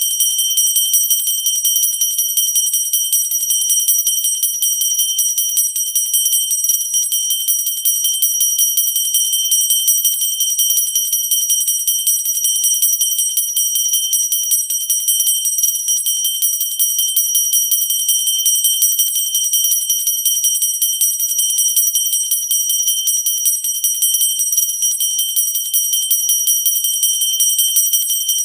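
Pooja bell rung rapidly and without pause. The clapper strikes many times a second, keeping the high ringing tones going steadily.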